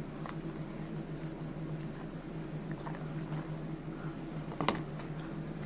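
Sticky glue slime squishing and pulling as a hand works it out of a plastic tub, with a few faint clicks, the sharpest a little before the end.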